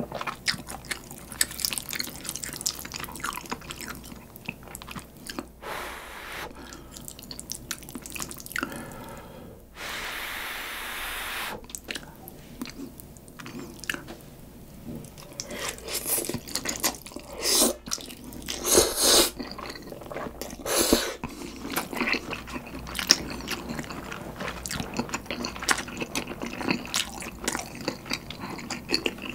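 Close-miked eating: wet chewing, lip smacks and mouth clicks from bites of spicy carbonara stir-fried ramen noodles and bulgogi. Louder noodle slurps come in the middle.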